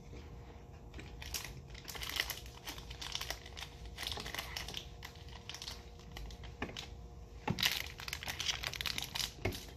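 Plastic wrappers of individually wrapped fruit gummies crinkling as they are unwrapped by hand. The crackles come irregularly and are loudest a little past two-thirds of the way in.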